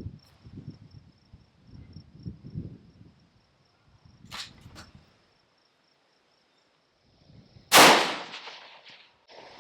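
A single loud rifle shot about eight seconds in, trailing off over about a second. Before it, gusting wind rumbles on the microphone and there are two sharp clicks; crickets chirp steadily throughout.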